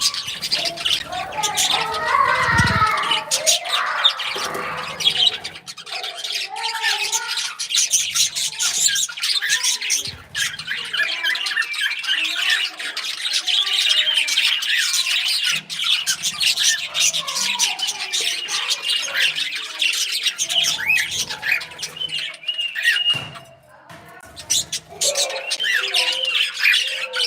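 Small caged pet parrots chirping, warbling and squawking all at once, a dense unbroken chatter with a short lull near the end.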